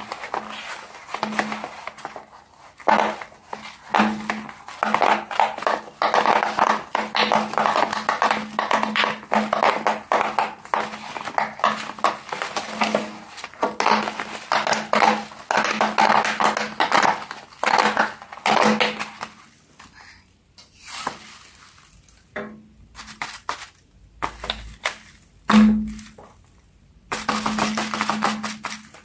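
Silicone pop-it fidget boards being pressed with the fingers: a fast, uneven run of short pops as the bubbles are pushed through, stopping a little over halfway. After that come scattered knocks and handling of toys on the table.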